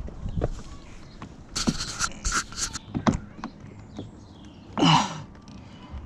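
Hand work on a car's plastic door trim: a few sharp clicks and knocks and some rustling scrapes, then a short breath or grunt about five seconds in.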